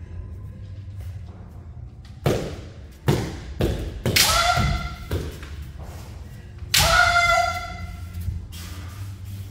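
Kendo bout between two women: a stamping footfall thuds on the mat, bamboo shinai clack and strike in quick succession, and a fencer lets out a loud, high kiai shout with the attack, followed by a second long shout about seven seconds in.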